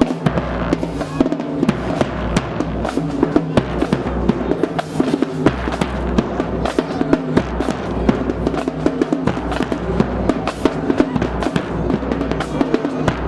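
Middle school marching band playing: brass and low horns carry held notes over a drumline of bass drums and snares hitting steadily.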